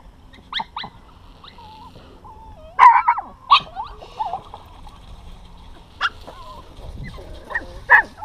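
Small dogs yapping in short sharp barks, the loudest about three seconds in, with high wavering whines between the barks.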